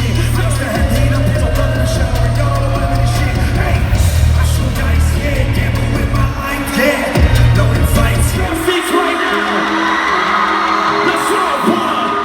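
Loud live concert music over a PA, with singing and heavy bass, and whoops and yells from the crowd; the bass drops out about nine seconds in.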